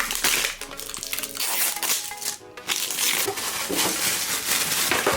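Crinkly plastic toy packaging being crumpled and torn open by hand in irregular crackling bursts, over background music.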